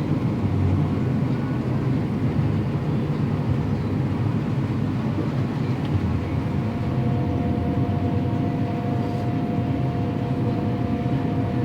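Farm machinery running steadily: a continuous low rumble with a faint, steady whine above it.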